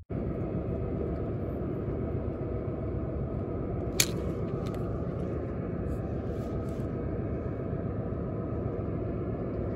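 Steady low outdoor rumble, with one sharp click about four seconds in and a few faint ticks just after.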